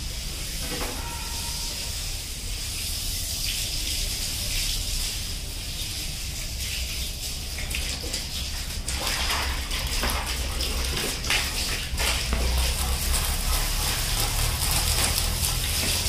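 Pressurised water jet from a hose nozzle spraying the fins of a window air conditioner's condenser coil, a steady hiss of spray that washes the dust out of the coil. It grows louder and more splashy about halfway through.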